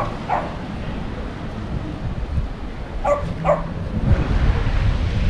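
A dog barking in two pairs of short, sharp yaps, one pair at the start and another about three seconds in, over a low rumble of wind on the microphone.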